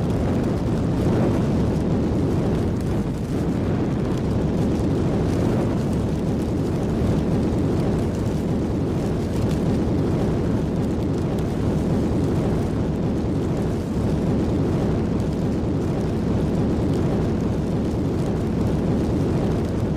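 Steady, loud, low rumbling noise with no clear pitch: a rumble sound effect playing back in an edited video.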